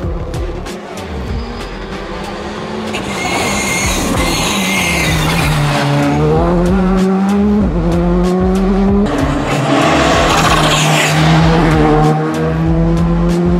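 Škoda Fabia rally car's turbocharged four-cylinder engine driven hard: revs fall as it slows for a corner, then climb twice with a sudden drop at each upshift. Tyres hiss on the tarmac through the corner.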